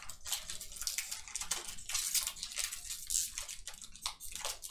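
Plastic foil wrapper of a Panini football card pack crinkling and crackling in irregular bursts as hands struggle to tear it open.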